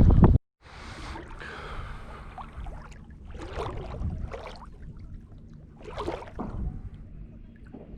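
Shallow saltwater sloshing and swishing in separate strokes, about a second in, again around four seconds and around six seconds, typical of legs wading through a shallow bay. A burst of wind on the microphone ends abruptly at the very start.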